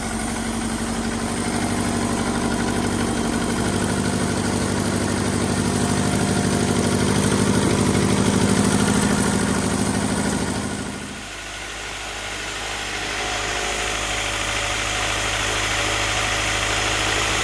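Acura Integra's freshly installed replacement four-cylinder engine running on its first start, its throttle worked by hand with no throttle cable. The revs climb slowly over the first eight seconds or so, then fall away about eleven seconds in and settle to a lower, steady idle.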